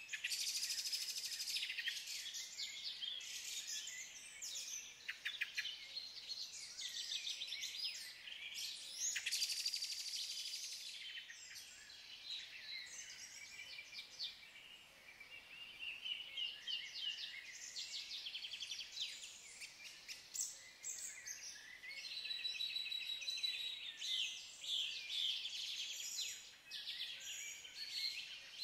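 Songbird chorus: several small birds singing over each other in quick trills, chirps and repeated notes, with no break.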